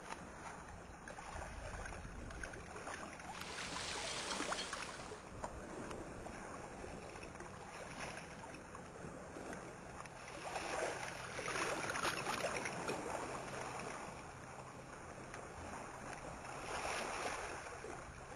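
Rushing water, swelling and fading about four times.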